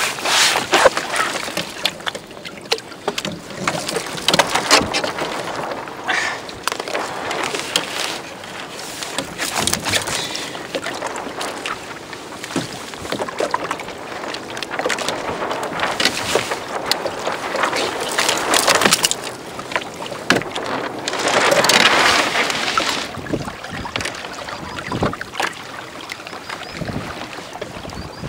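Water lapping and splashing against a kayak's hull, rising and falling in irregular surges.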